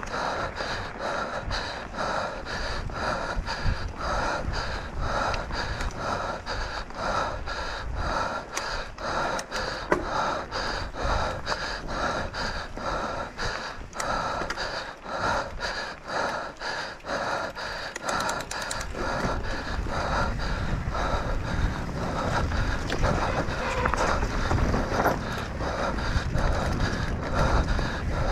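A mountain-bike racer panting hard and rhythmically, about two breaths a second, out of breath from the effort of the race run, over a steady low rumble of wind and the bike on the trail.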